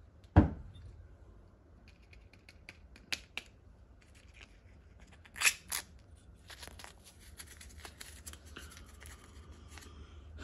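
Hands handling and pulling apart a jet ski's Keihin carburetor: a sharp knock about half a second in, a double scrape about halfway, then many light clicks and ticks as the fuel pump cover, diaphragm and gasket are lifted off and handled.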